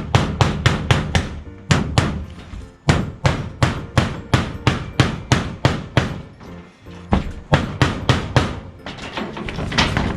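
A hammer driving nails: quick runs of sharp metallic-edged strikes, about four or five a second, broken by short pauses, over background music.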